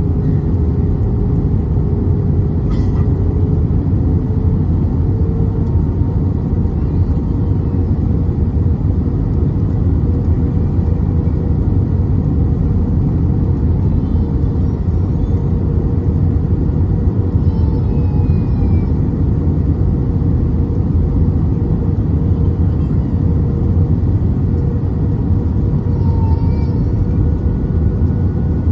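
Steady cabin rumble of an Airbus A320-214 in flight on the approach, with its CFM56 engines running and a steady engine tone that rises slightly about four seconds in.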